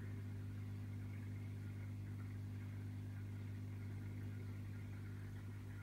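Aquarium pump humming steadily: an even low hum with a fainter higher tone above it.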